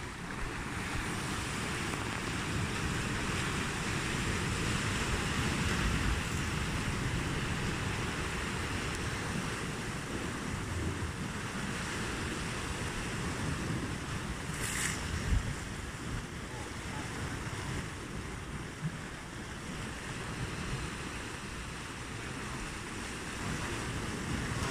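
Sea waves washing steadily, with wind buffeting the microphone. One brief high-pitched sound about fifteen seconds in.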